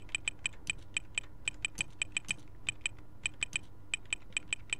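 Computer keyboard typing a line of text: quick, uneven keystrokes, about five a second.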